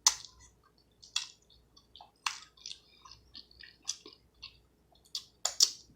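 A person chewing food close to the microphone, with irregular wet smacking and clicking mouth sounds.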